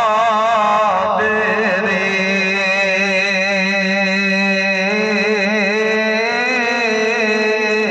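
A man's voice chanting in long, held melodic lines with a wavering, ornamented pitch, the melodic recitation of a preacher within a sermon.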